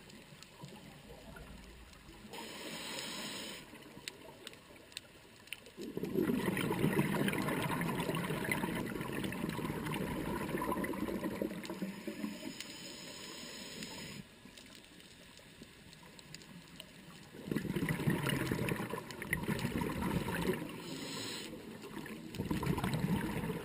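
Scuba diver breathing through a regulator underwater: brief hissing inhalations, and long stretches of bubbling from the exhaled air, about six seconds in and again from a few seconds before the end.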